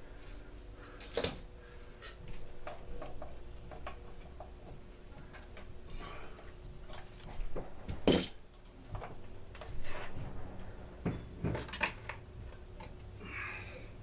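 Scattered clicks and clinks of tools and parts being handled during the teardown of a two-stroke leaf blower, with a sharper knock about eight seconds in, over a faint steady hum.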